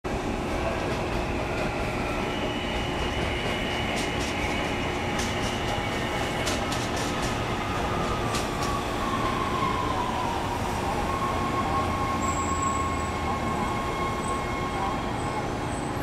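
Amtrak Regional's stainless-steel passenger cars rolling past at close range: a steady rumble of wheels on rail, with thin, high wheel-squeal tones and a few sharp clicks about four to eight seconds in.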